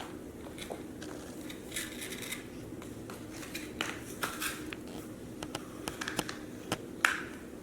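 Pieces of a children's toy tool set being handled: scattered light clicks, taps and scraping, with one sharper click about seven seconds in.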